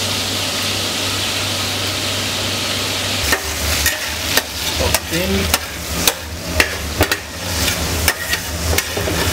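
Diced cuttlefish and grated tomato sizzling steadily in hot oil in a steel paella pan. From about three seconds in, a metal spoon stirs and scrapes against the pan with many sharp clicks.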